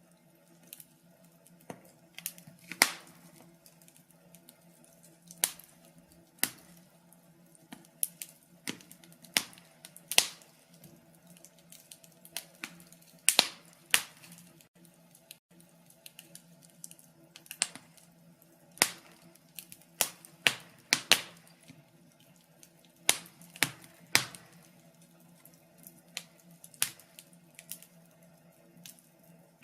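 Wood fire burning in a fireplace, crackling with irregular sharp pops, some much louder than others, over a faint steady hum.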